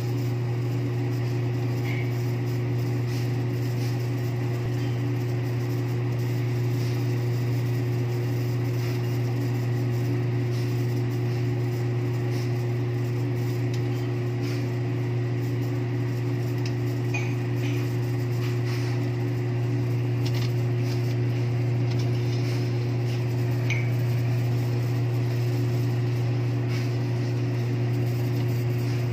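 Steady electric hum of an egg incubator running, its circulation fan and tray-turning motor going while the egg trays tilt. A few faint light ticks sound over the hum.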